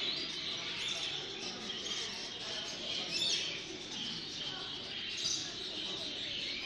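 Many caged birds chirping and calling at once in a dense, continuous chatter, with a faint murmur of voices beneath.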